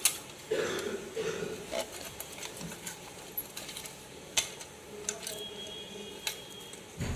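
Flat metal blade scraping and clicking along the grooves of a ceramic electric hot-plate base, clearing out the coil channels. Irregular scrapes and sharp clicks, the loudest right at the start.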